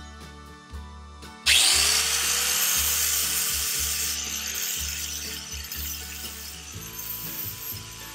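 Flat-disc grinder with an 80-grit sanding disc switched on about a second and a half in, its motor pitch rising as it spins up, then grinding epoxy barrier coat off a fibreglass rudder and slowly easing off. Background music with a bass line plays throughout.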